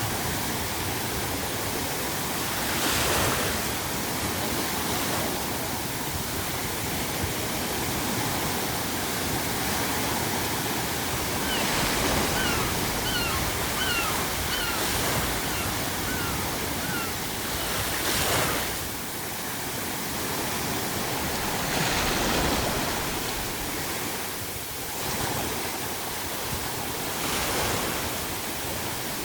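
Ocean waves breaking on a shore, five crashes swelling about every four to six seconds, over a steady hiss of pink noise. About halfway through, a seagull calls in a run of about seven short cries.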